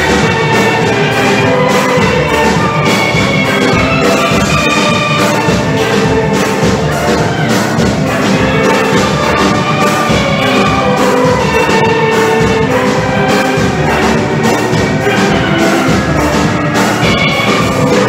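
Steel orchestra playing live: several steelpans ringing out a melody and chords over a steady percussion beat.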